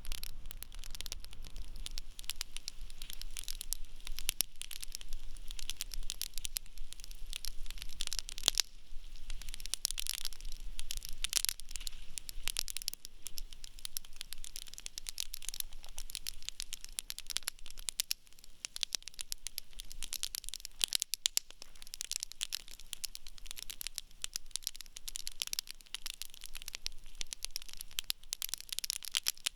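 Wood campfire burning in a fire pit, crackling steadily with dense sharp pops and snaps over a soft hiss, a few pops louder than the rest.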